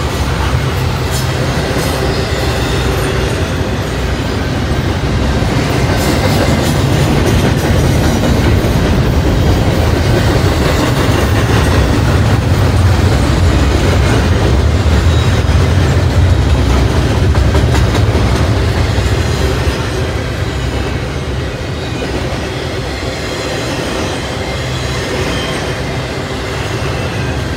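Double-stack intermodal freight train of container well cars rolling past: a steady rumble of steel wheels on the rails with some clacking, louder in the middle and easing off a little after about twenty seconds.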